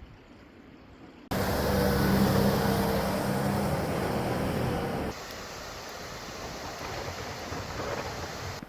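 A car passing close by, its engine tones over tyre and road rush, starting abruptly about a second in. A steadier, quieter rushing noise follows and stops suddenly near the end.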